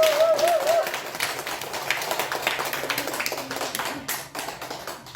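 A group of people clapping, the claps dense at first and thinning toward the end, while a held sung note wavers and ends about a second in.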